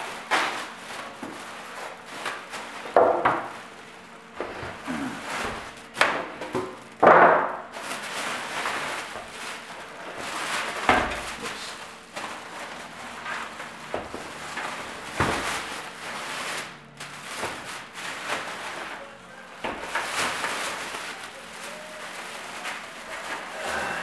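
Unpacking a PC case: rustling and scraping of the packing material, with irregular knocks and thunks as the case is handled and moved.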